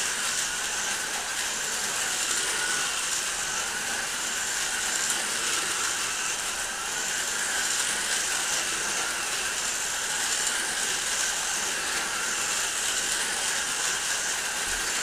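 Four SCX Compact 1:43-scale slot cars racing around a plastic track: a steady whir of their small electric motors and a rattle of the cars running in the track slots.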